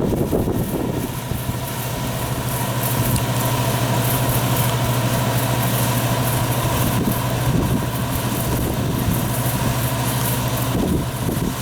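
Yanmar farm machine's engine running steadily, with a constant low hum over a wide mechanical noise; the hum shifts briefly near the end.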